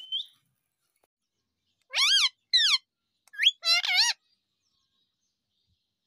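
Indian ringneck parrot calling: a short high chirp, then about two seconds in a quick run of four loud, high-pitched calls whose pitch wobbles up and down.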